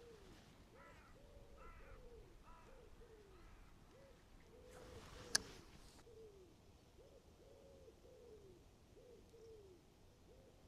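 A pigeon cooing faintly in a long run of short, rounded notes, one after another. A single sharp click about halfway through.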